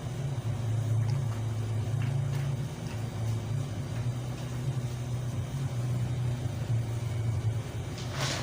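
A steady low mechanical hum, wavering slightly in level, from running machinery such as an engine, with a few faint clicks.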